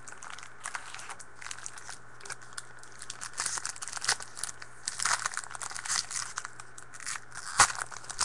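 Trading-card pack wrapper crinkling and rustling as cards are handled, with irregular crackles that grow busier from about three seconds in and one sharp crackle near the end.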